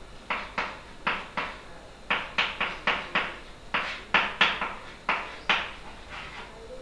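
Chalk writing on a chalkboard: a quick, irregular run of short, sharp taps and scrapes as each letter stroke is made, about two or three a second, stopping shortly before the end.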